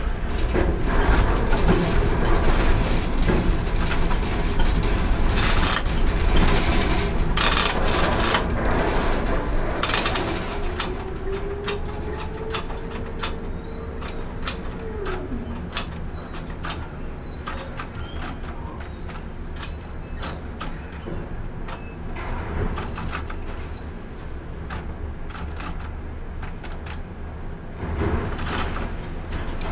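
Ship-to-shore container crane machinery running, with a steady low hum and repeated metallic clanks and knocks as the spreader and container are handled. About halfway a motor whine rises, holds, then drops away. The clanks are busiest in the first few seconds and come again near the end.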